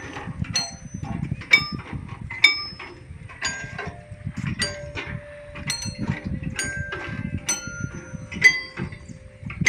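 Outdoor stainless-steel tubular chimes struck one after another, about once a second. Each strike is a metallic clang that rings briefly at its own pitch, picking out a tune note by note.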